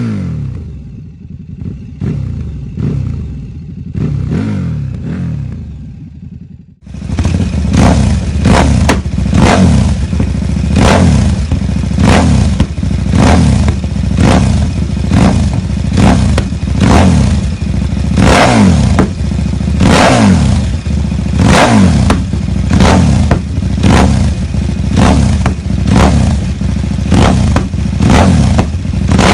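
KTM 1190 RC8's V-twin engine revved repeatedly through its exhaust: sharp throttle blips, each falling quickly back toward idle. About seven seconds in, a cut switches to a louder clip with quicker blips, roughly one a second.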